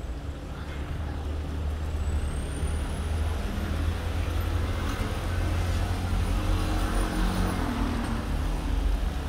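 Street traffic: the steady low rumble of a heavy vehicle's engine running close by, with road noise.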